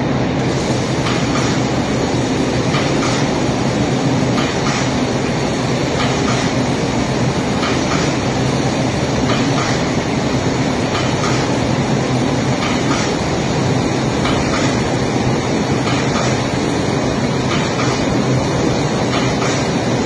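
Steady loud industrial machine noise, an even rushing drone with faint irregular clicks through it.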